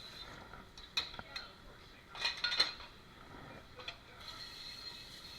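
Dishes and cutlery clinking and clattering as they are handled at a restaurant dish station: a few sharp clinks about a second in, then a louder clatter in the middle, over a steady high-pitched hum.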